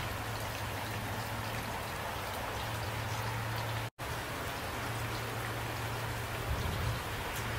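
Steady rain falling at night, with scattered close drop hits over an even hiss and a steady low hum underneath. The sound cuts out completely for a split second about four seconds in.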